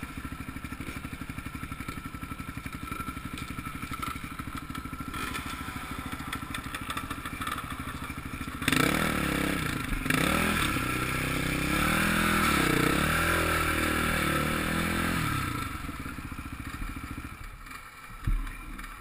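Motocross bike engine, close to the microphone: ticking over steadily at a low idle, then revved and eased several times as the bike moves off slowly. The engine sound dies away near the end, with a single thump.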